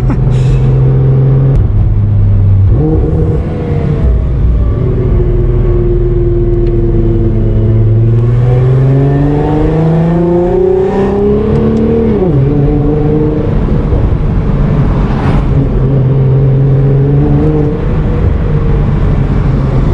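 Nissan R35 GT-R's twin-turbo 3.8-litre V6, heard from inside the cabin, running at a steady engine speed. About eight seconds in it climbs in pitch for some four seconds as the car speeds up, then drops sharply and settles back to a steady note.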